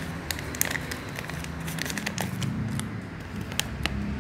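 Scattered light clicks and crinkles from handling dried tea flowers and their crinkly plastic zip-lock pouches, over a low steady hum.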